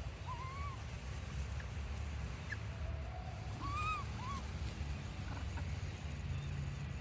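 A baby monkey giving a few short, high, arched cries about a second apart, the strongest nearly four seconds in, over a steady low rumble.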